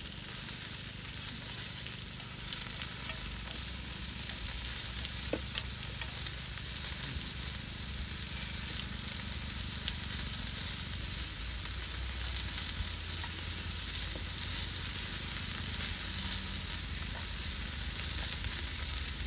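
Meat sizzling in a frying pan on a portable gas stove, a steady hiss throughout, with a few light clicks as it is turned with tongs.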